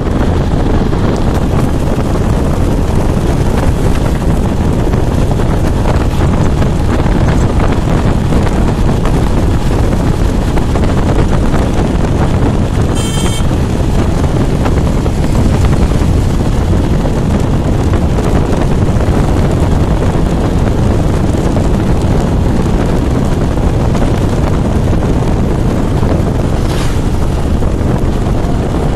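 Steady rush of wind buffeting the microphone over the low rumble of a vehicle under way, heard from on board. A brief high-pitched tone sounds about halfway through.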